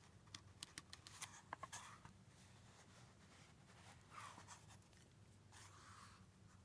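Near silence with faint handling of a book: a few small clicks, then two soft paper rustles, one about four seconds in and one about six seconds in, as pages are turned.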